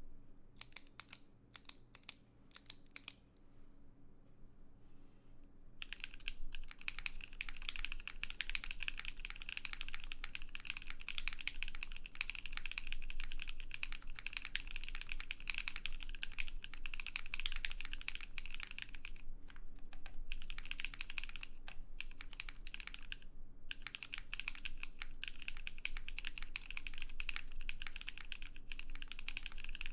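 Typing on an idb60 custom mechanical keyboard, plateless gasket mount, with lubed NovelKeys Cream linear switches and Cherry doubleshot keycaps. A handful of separate sharp clicks come in the first three seconds, then fast continuous typing starts about six seconds in and runs on with two short pauses.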